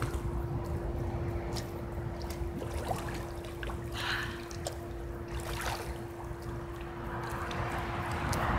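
Pool water sloshing and splashing around a swimmer, with scattered small splashes over a steady hum.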